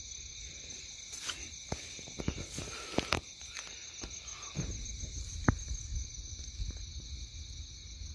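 Steady night chorus of crickets and other insects trilling at several pitches, one of them pulsing quickly. Scattered clicks and soft footsteps sound over the chorus, the sharpest about three and five and a half seconds in.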